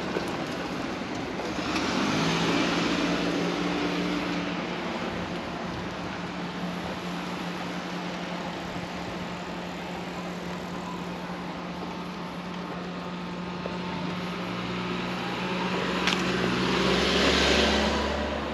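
Cars passing on a street: one goes by about two seconds in and another near the end, with a steady low engine hum between them.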